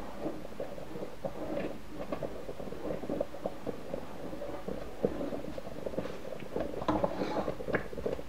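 Semolina porridge thickening in boiling milk, bubbling and popping in a pot while a wooden spoon stirs it.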